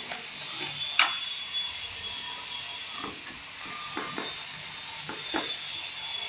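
Four sharp clinks and knocks of stone and metal, the loudest about a second in and the others near the end: a hand-held marble cutter and a granite guide strip being set in place on granite skirting, the cutter's motor not running.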